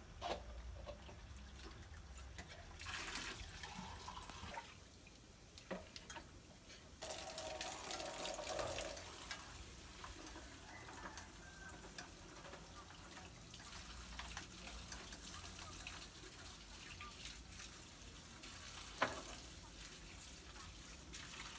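Chopped aromatics frying in hot oil in a stainless steel pot on a gas burner, a steady sizzling hiss that grows louder about a third of the way in. One sharp knock comes near the end.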